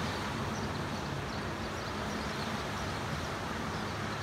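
Surf breaking and washing over a sandy, lava-rock shoreline: a steady, unbroken hiss of waves.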